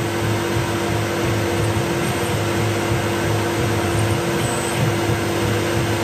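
Tormach PCNC milling machine running, its spindle giving a steady tone, while the air-driven mist coolant nozzle hisses steadily.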